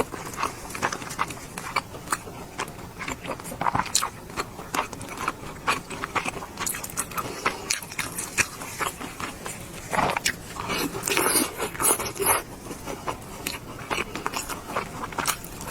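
Close-miked eating: wet biting, chewing and lip-smacking on braised pork belly, a dense run of irregular clicks and smacks, with a cluster of louder, fuller mouthfuls about two-thirds of the way through.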